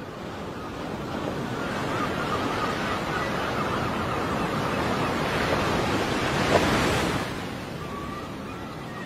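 Sea surf washing onto a shore of coarse sand and pebbles: a hiss that builds, swells to its loudest about six and a half seconds in, then draws back.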